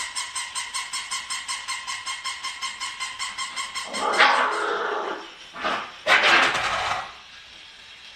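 Small dogs yapping: a rapid, high-pitched run of about five yaps a second for roughly four seconds, then louder, harsher barks and a yelp that falls in pitch.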